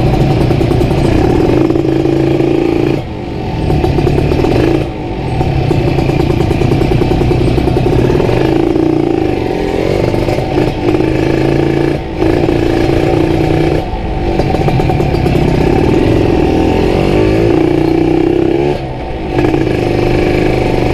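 Kawasaki Ninja RR 150's two-stroke single-cylinder engine running through a CMS aftermarket exhaust while riding. It pulls steadily, and the throttle eases off briefly several times before picking up again.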